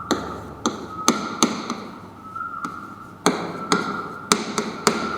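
Irregular sharp taps and clicks of a writing implement against a writing surface, about a dozen over a few seconds, as words are written out.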